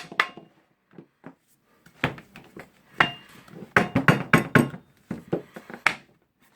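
Rubber mallet knocking on the metal parts of a Hilti DCG 230-D angle grinder to loosen a part: a series of sharp knocks, some with a brief metallic ring, quickening into a rapid run of blows about four seconds in.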